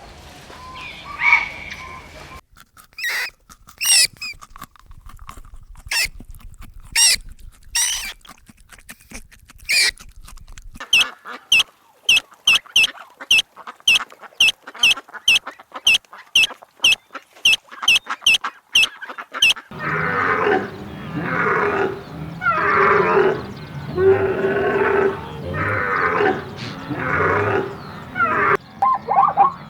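A series of different animal calls one after another: a high call at first, then scattered sharp calls, then a fast, even run of short high calls about two a second, and in the last third deep, rough grunting calls.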